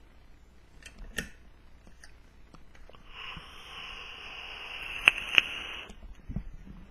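Handling noise: a hand rubbing against the camera and its microphone gives a rough hiss for about three seconds, with two sharp clicks near the end. A faint tap comes earlier as small metal tank parts are moved about.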